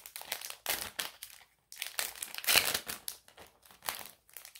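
Crinkling and rustling of packaging being handled, in irregular bursts with short pauses, the loudest about halfway through.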